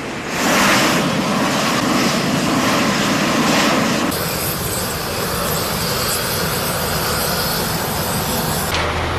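Loud, steady machinery noise of engines running, changing abruptly about four seconds in and again near the end, where a steady low hum takes over.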